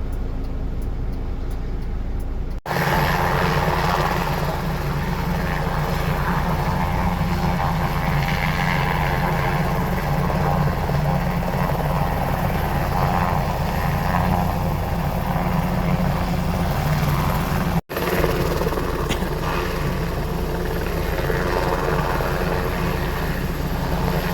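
Aircraft engine running loud and steady close by on an airfield, with a strong low hum under it. The sound drops out abruptly for an instant twice, about two and a half seconds in and again near eighteen seconds.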